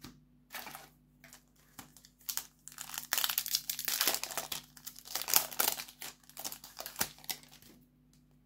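Foil wrapper of a Yu-Gi-Oh! booster pack crinkling as it is torn open by hand: a few light crackles at first, then a dense crinkling rustle for several seconds that dies away shortly before the end.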